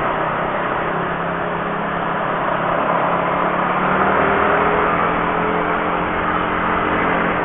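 Honda CB150R's single-cylinder engine running at riding speed under steady wind and road noise on the bike-mounted mic, with other traffic around; its pitch rises a little about four seconds in as the bike speeds up.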